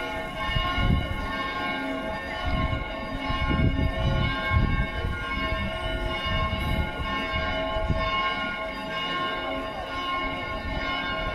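Church bells pealing, many bell tones ringing together and overlapping in a dense, steady wash. Low rumbles on the microphone come and go, loudest about four seconds in.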